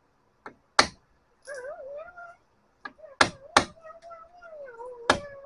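Four loud hammer blows on a 1999 GMC Sierra's front wheel hub, with two lighter taps, knocking parts loose during hub bearing removal. A high, wavering whine runs between the blows.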